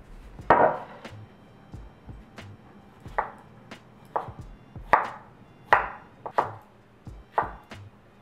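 A wooden cutting board set down on a stone countertop with a loud thud about half a second in, then a chef's knife cutting strawberries and mango on the board, a sharp stroke about once a second.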